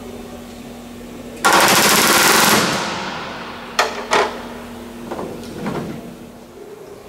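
Pneumatic rivet gun hammering a rivet into the bomber's fuselage door frame in one rapid burst of about a second, followed by two sharp knocks.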